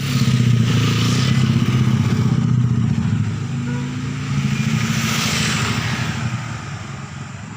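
A motor vehicle engine running close by, with a hiss rising about a second in and again about five seconds in. It fades over the last couple of seconds.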